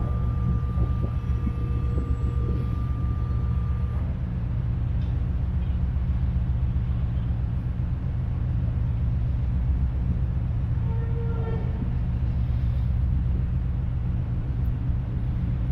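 Steady low drone of the ferry's engines and onboard machinery running while the ship lies at the berth, with a faint steady high tone over the first four seconds.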